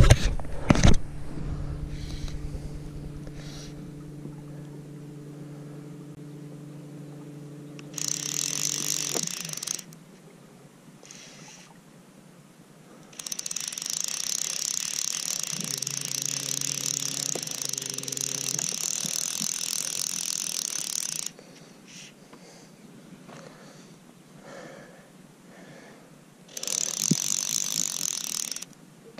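Fly reel's ratchet drag buzzing as a carp strips line off it, in three runs: a short one about eight seconds in, a long one of about eight seconds from about thirteen seconds, and a short one near the end. Under the first part, and again briefly in the middle, there is a steady low hum from the boat's electric motor.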